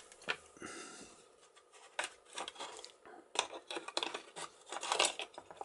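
Small metal parts of a boat cabin door lock, the lever hub and its pieces, clicking and scraping against the steel lock case as they are fitted by hand. There are scattered light clicks, and they come more thickly in the second half.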